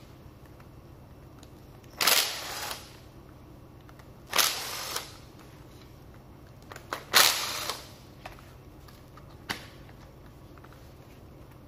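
Makita TD110D 12 V cordless impact driver run in three short bursts, each starting sharply and fading within a second, loosening screws on a multi power head's gear housing.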